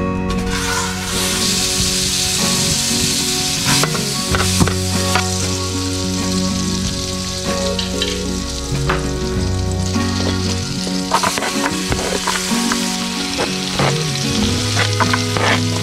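Fat sizzling in a hot aluminium pan, with a steady hiss throughout. Chopped garlic and onion are tipped in near the end, and a metal spoon clinks and scrapes against the pan now and then.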